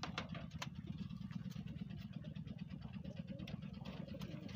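Steady low rumble with a few sharp metallic clicks, near the start and again near the end, as the wire-mesh pigeon cage is handled.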